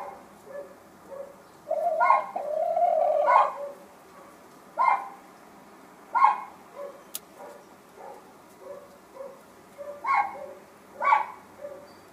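Hens in a nest box clucking: sharp clucks every second or two, a longer drawn-out call about two seconds in, and soft low clucks in between.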